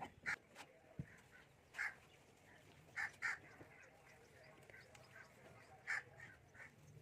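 Chickens clucking in short, separate calls, a few of them in quick pairs.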